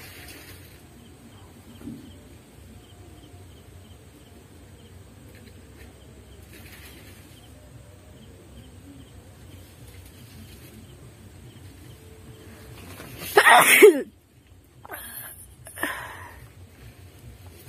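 A woman sneezes once, loudly, about thirteen seconds in: a drawn-out, wavering intake that breaks into the sneeze. It is deliberately brought on by tickling the inside of her nose. Two shorter, softer sounds follow.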